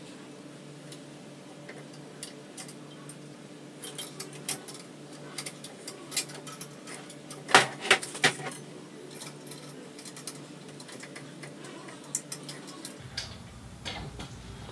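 Scattered metallic clicks and light rattling of a hand tool turning a scooter's ICS compression bolt, with a brief run of louder clicks about halfway through.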